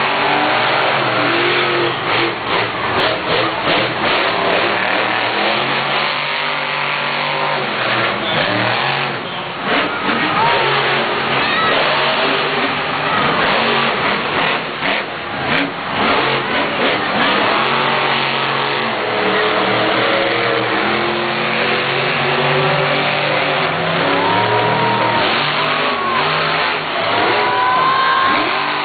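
Grave Digger monster truck's supercharged V8 running loud and revving up and down repeatedly as the truck accelerates and turns on the dirt, its pitch rising and falling with each burst of throttle.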